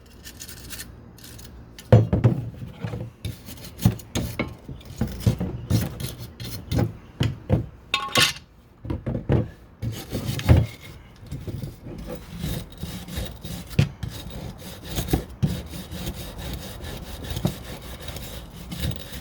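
Irregular hand scraping and scrubbing of old hardened grease from a metal door window track, with scattered knocks as the part is handled.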